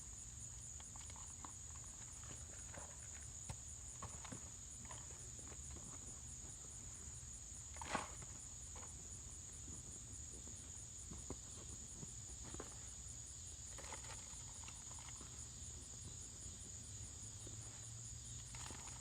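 Soft scrapes and clicks of a hand tool digging through soil in a planting bucket, with one louder knock about eight seconds in, over a steady high-pitched insect chorus.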